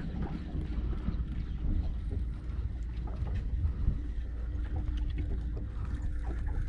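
Wind rumbling on the microphone, with a faint steady hum underneath.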